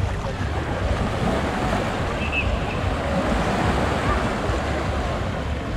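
Surf washing onto the beach, with wind buffeting the microphone in a low rumble. Faint voices of other beachgoers are mixed in.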